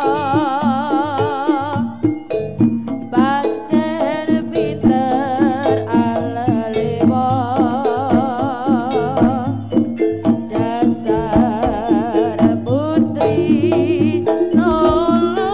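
Live East Javanese jaranan gamelan music: drums and tuned percussion keep a steady repeating beat under a melody that wavers in pitch.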